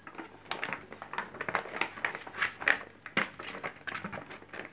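Foil blind-bag wrapper and folded paper insert crinkling and rustling as they are handled, in a run of irregular crackles.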